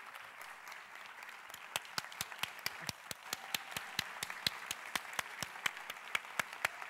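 Audience applause fading into a soft background, over which one person's sharp hand claps start about two seconds in and keep a steady beat of about four a second.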